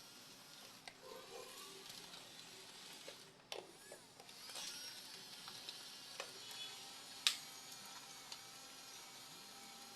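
Quiet background with a few scattered sharp clicks and knocks, the loudest about seven seconds in, over faint wavering tones.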